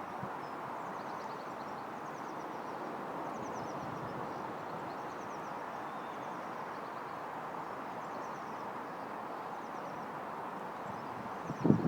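Steady outdoor background noise with small birds singing faintly in short repeated phrases. Near the end, wind starts buffeting the microphone.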